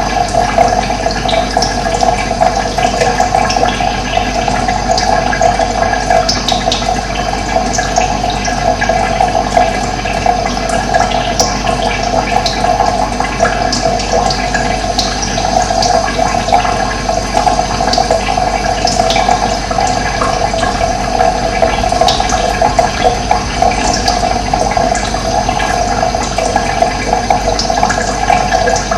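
Running water flowing steadily, with a few brief bird chirps heard now and then above it.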